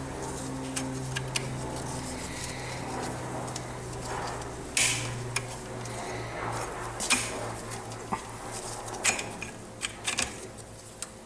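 Steel clutch plates and friction discs of a Honda CB450 clinking and scraping as they are pulled from the clutch basket, with scattered sharp metallic clinks. A steady low hum runs underneath.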